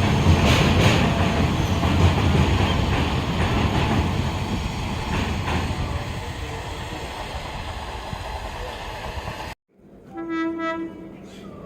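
Indian EMU local train running past with a rumbling clatter that slowly fades as it goes by. After a sudden cut, a train horn sounds once, a single steady note about a second long.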